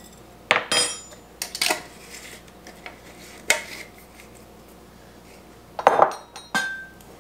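Metal measuring spoons and glass jars clinking and tapping in scattered sharp clinks, a few at a time. The loudest cluster comes about six seconds in, followed by a short ring.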